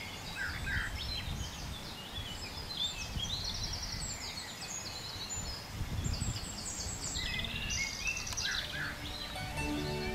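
Small songbirds singing and calling outdoors, with quick high trills and chirps, over a steady low background rumble. Soft music fades in near the end.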